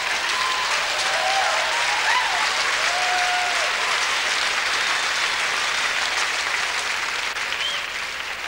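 Large theatre audience applauding steadily, with a few voices calling out over the clapping a second or two in; the applause starts to die down near the end.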